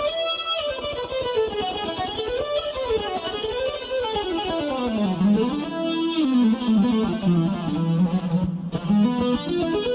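Korg Krome workstation synthesizer playing a distorted, guitar-like lead patch in fast runs that sweep up and down. About halfway in the line drops onto a low held note, then climbs again near the end.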